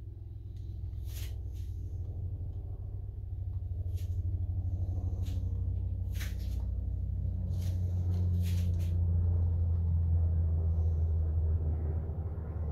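A low, steady rumble that builds over about ten seconds and eases near the end, with several short light clicks and taps through it.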